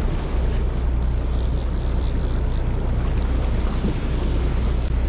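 Fishing boat's engine running steadily as a low hum, with wind buffeting the microphone and sea noise.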